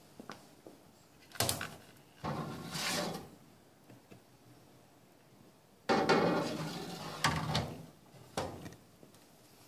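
Front dust-bin cover of an acrylic beveling machine being pulled off and later fitted back on. There are knocks and scraping about a second and a half in, then a longer stretch of scraping and clatter from about six seconds, ending in a short knock.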